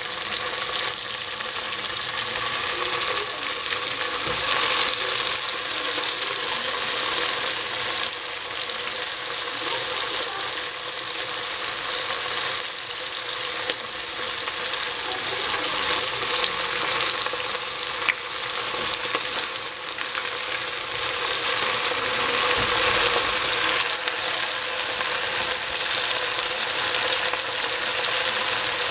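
Sweet peas and shiitake mushrooms sizzling steadily in hot oil in a stainless steel pot over a high gas flame, while bok choy leaves are added on top. A faint steady hum runs underneath the sizzle.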